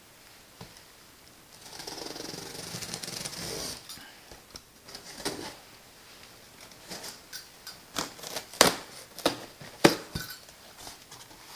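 Cardboard shipping box being opened: a rasping scrape as the packing tape is cut about two seconds in, then a run of sharp knocks, taps and rustles as the cardboard flaps are handled and folded open.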